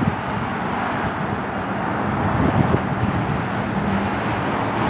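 Steady street traffic noise as cars and a delivery truck drive through, with a low engine hum for a second or two in the middle.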